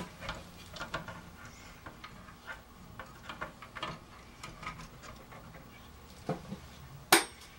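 Small plastic clicks and rattles of wire connectors being plugged back into a CD player's circuit board and drive, with one sharp, loud snap near the end.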